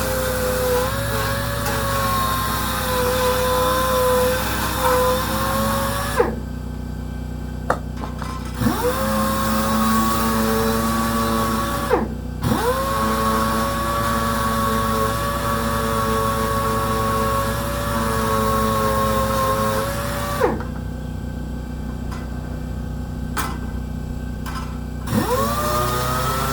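Power sander working a small dash part, a steady whine that stops about six seconds in, spins back up a couple of seconds later, cuts out briefly around twelve seconds, runs on, stops again and spins up near the end. A steady low hum runs underneath throughout.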